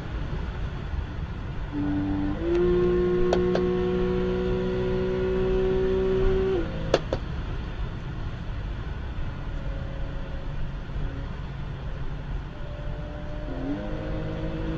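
A car engine heard from inside the cabin at high speed, with road and wind noise. About two seconds in the engine note dips and then steps up, climbing slowly in pitch as the car pulls; it drops away after about six and a half seconds, followed by a sharp click, leaving mostly road and wind noise until the engine note rises again near the end.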